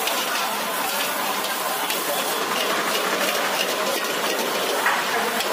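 Chicken fried rice sizzling in a large wok as it is tossed with two metal spatulas, a steady hiss with a few light clicks of the spatulas against the wok.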